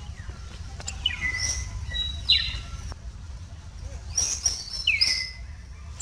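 Short, high chirping calls that slide downward in pitch, a few about a second or two in and a quicker cluster near the end, over a steady low rumble.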